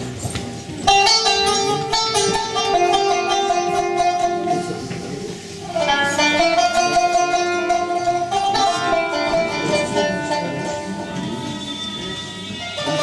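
Qanun plucked in melodic phrases: one phrase starts about a second in and another about six seconds in, each ringing on and fading.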